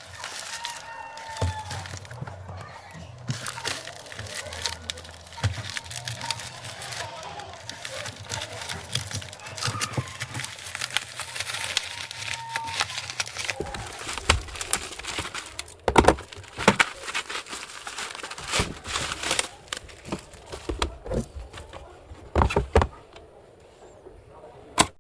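Packaging being unwrapped: plastic and paper crinkling, tearing and crackling, with a few louder knocks in the second half.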